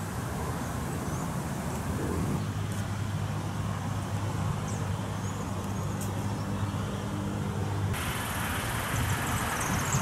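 Motor-vehicle engine running with a steady low hum over a general traffic rumble, with a few faint, short, high bird chirps. About eight seconds in the hum stops and the background turns abruptly to a brighter hiss.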